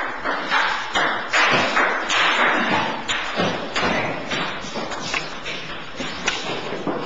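Table tennis rally: the ball clicking off paddles and table in a quick, even run of about two to three hits a second, with room echo after each hit.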